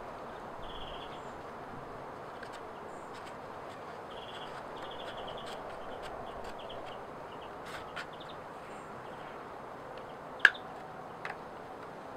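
Quiet outdoor background with short, rapid chirping trills, and a few sharp clicks and crackles from a birch bark strip being bent and wrapped around a bark sheath by hand, the loudest click about ten seconds in.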